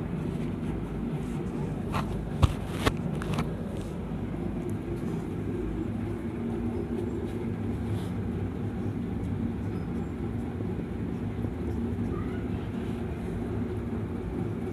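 Steady low background rumble, with a few sharp clicks about two to three and a half seconds in.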